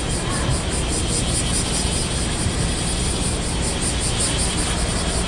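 Small passenger ferry's engine running steadily as the boat pulls away from the pier, heard on the open upper deck, with a fast high pulsing about five times a second over it.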